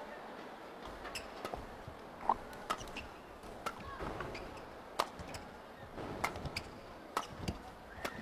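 Badminton rally: a string of sharp racket hits on the shuttlecock, roughly a second apart, over a steady murmur from the arena crowd.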